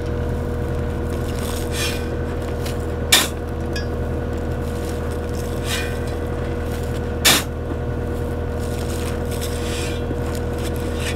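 Skid steer engine running steadily, with a sharp clank three times.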